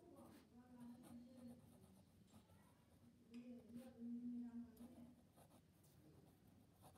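Faint scratching of a pen writing on notebook paper.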